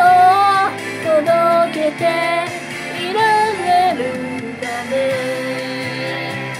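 A woman singing a pop-style melody over instrumental accompaniment, practising the song, and holding one long note for the last couple of seconds.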